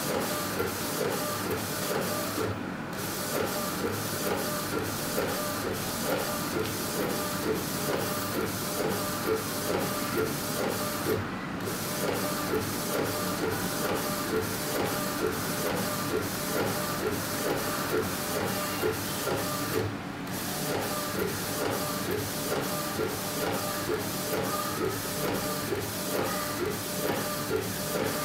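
Epson-based A4 flatbed inkjet printer running mid-print on a T-shirt. The print mechanism gives a steady whir with a rapid, regular ticking of about four a second, which stops briefly three times.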